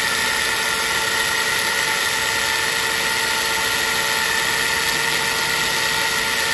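Angle grinder with an abrasive cut-off disc running and cutting through iron: a steady whine over a hiss, with no change in speed or load.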